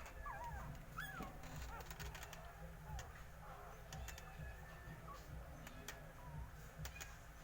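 Young puppies whining and squeaking: many short, thin, high-pitched cries that rise and fall, with a few faint clicks among them.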